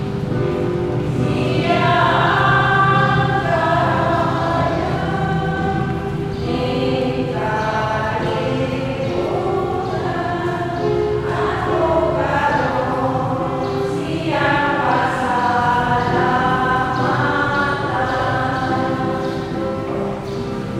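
Choir singing a slow hymn in sung phrases a few seconds long over steady held low notes.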